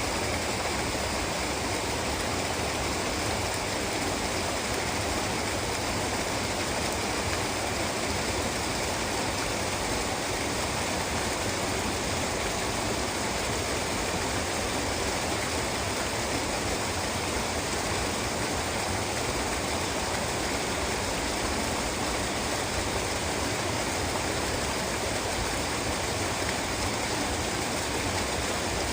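Waterfall: a continuous, steady rush of falling water with no breaks.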